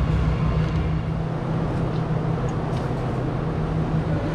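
Steady low hum and noise of a large indoor warehouse airsoft arena, with a few faint clicks about two to three seconds in.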